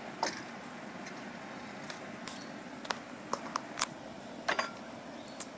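Scattered light clicks and knocks, about nine in all, from a percussion muzzleloader and gear being handled and set down on a wooden deck, over a faint steady background hum.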